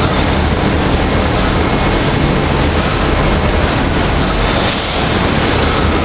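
Steady machinery noise of a biscuit production line running, its conveyors and machines making a constant loud din, with a short hiss about five seconds in.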